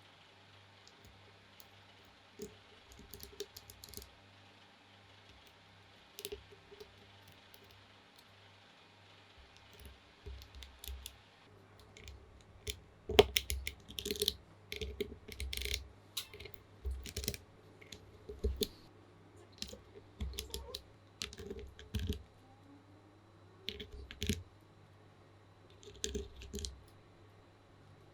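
Short irregular clusters of sharp plastic clicks and clacks from a TU40 plateless mechanical keyboard: scattered at first, then coming in bunches about every second or so.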